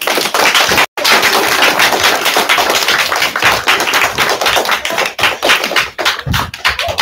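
Audience clapping. The claps are dense at first and thin out toward the end, with a momentary dropout about a second in.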